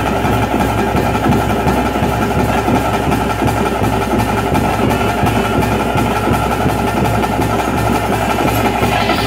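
Loud bhuta kola ritual music: fast, continuous drumming over a steady held tone.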